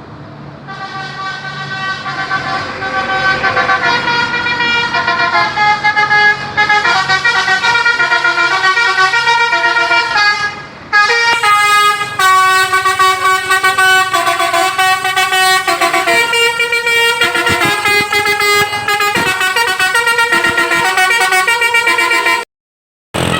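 Basuri 'telolet' musical bus horn playing a tune of stepped notes, swelling over the first few seconds. It breaks off briefly about halfway, then plays on and cuts off abruptly near the end.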